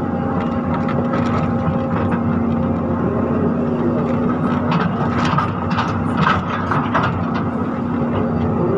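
Excavator's diesel engine running steadily, with scattered knocks and clatters of soil and stones.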